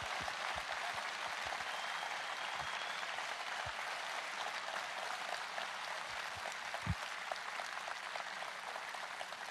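Large audience applauding: many hands clapping together in an even patter that eases slightly near the end.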